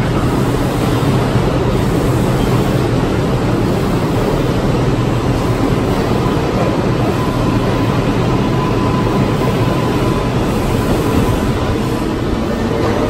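New York City Subway 6 train running: a loud, steady rumble of wheels on rail, with a faint steady whine partway through and a short rising tone near the end.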